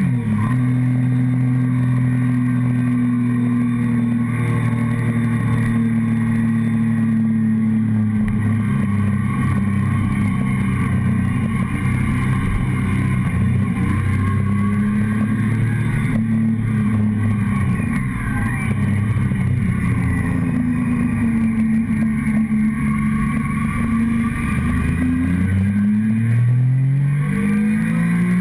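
Sport motorcycle engine running under way, heard from a tank-mounted camera with wind and road noise. The engine pitch holds steady for several seconds, sags and wavers midway as the bike slows, then climbs steeply near the end as it accelerates.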